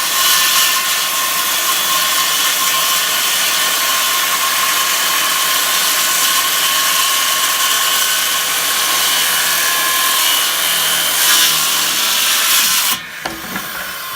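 Handheld circular saw running and cutting through a wooden board: a loud, steady, high whine that stops suddenly about a second before the end.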